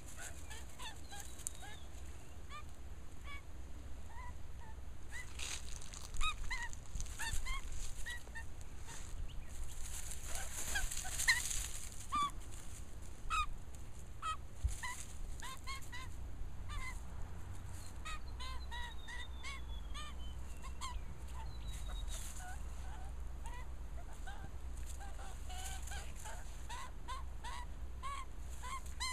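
Australian magpie giving short calls over and over, with scuffling in dry leaf litter and bark mulch as it tussles with a Jack Russell terrier; the scuffling is loudest from about five to twelve seconds in.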